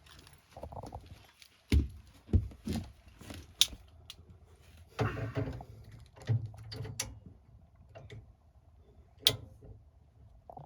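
Irregular knocks, clinks and thuds of tools and metal parts being handled while work is done on a furnace's gas valve and piping.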